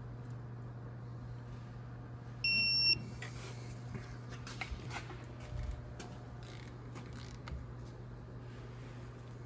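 Digital torque wrench giving a single beep about half a second long, about two and a half seconds in, as the brake caliper bolt reaches its set torque of about 25 foot-pounds. Light clicks of the tools follow, over a steady low hum.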